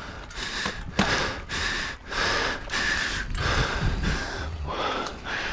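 Mountain biker panting hard and out of breath, quick rhythmic breaths about two a second, over the low rumble of the bike rolling down a dirt trail.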